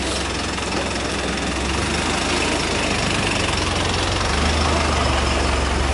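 A truck engine idling, a steady low rumble under street noise, growing louder about four seconds in.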